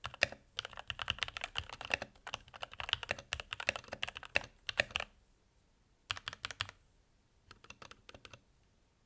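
Typing on a Keychron K8 mechanical keyboard with Gateron Red linear switches, resting on a desk mat, keys clicking in quick runs. The typing stops about five seconds in, then comes a short burst about a second later and a few faint keystrokes near the end.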